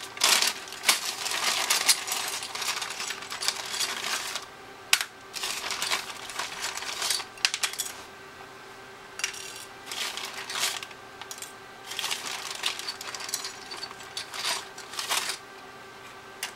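Small metal hand tools clinking and rattling as they are handled and sorted through, in irregular bursts of a few seconds with short pauses between.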